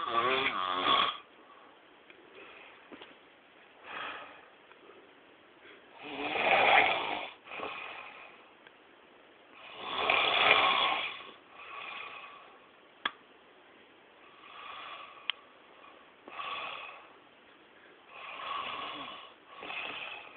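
A man snoring heavily in his sleep, with a rasping snore every few seconds. The loudest come at the start and about six and ten seconds in, with quieter snores between.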